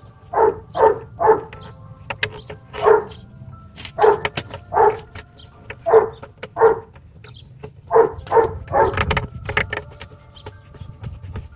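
A dog barking repeatedly: about a dozen short barks in irregular runs, with a few sharp clicks in between.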